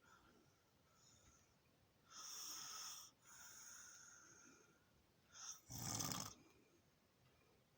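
A sleeper snoring in uneven breaths: a hissing breath about two seconds in, a fainter drawn-out breath after it, then a short sniff and a fuller, deeper snore about six seconds in.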